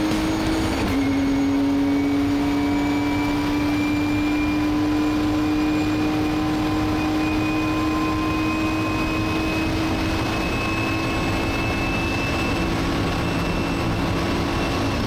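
Nissan GT-R GT3's twin-turbo VR38 V6 heard from inside the race car's cockpit under hard acceleration: a gear change about a second in, then the engine note climbing slowly and steadily in one gear down a long straight, with a high whine rising above it.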